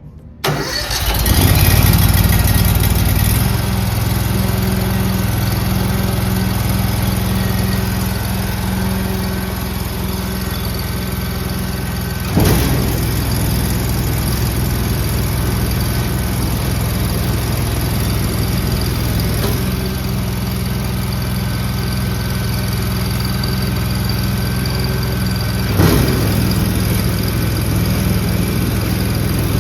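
The Honda GX690 V-twin engine of a skid-mounted concrete mixer starts about half a second in, then runs steadily under a low hum. A brief knock sounds twice over the running engine, about 12 s in and again near the end.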